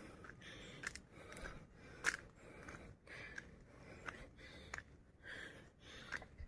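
Faint footsteps crunching and scuffing on a dry dirt trail strewn with fallen leaves, irregular steps roughly every half second to a second.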